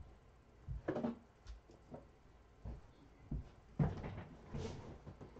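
Trading cards and their packaging being handled: scattered soft knocks and taps, with brief rustling about a second in and a longer stretch of rustling near the end.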